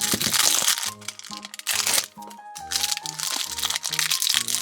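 Thin plastic wrapping crinkling and crackling as small packets are torn and opened, in two loud spells, over background music with a steady bass line.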